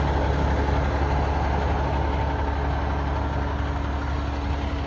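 Pierce fire engine's diesel engine idling steadily.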